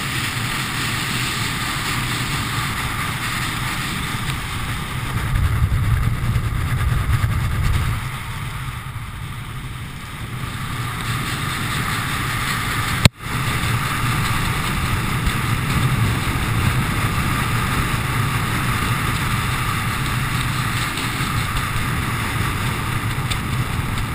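Wind rushing over a jumper-worn camera's microphone while flying under a parachute canopy: a steady rush with a low rumble, louder for a few seconds about five seconds in. About thirteen seconds in the sound drops out briefly with a click.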